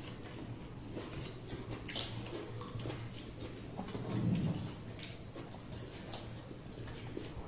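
Close-up eating sounds: chewing, and small wet clicks and squishes of fingers mixing rice and chicken curry on metal plates, over a steady low hum. A brief, louder low sound comes about four seconds in.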